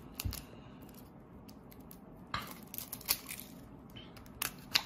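A boxed deck of playing cards handled in the hands: scattered clicks, taps and crinkles of the cardboard box, with a few sharper ones past the middle and just before the end.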